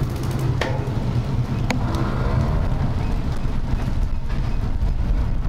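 Steady low rumble of wind and road noise from a vehicle moving along a street, with two faint clicks in the first two seconds.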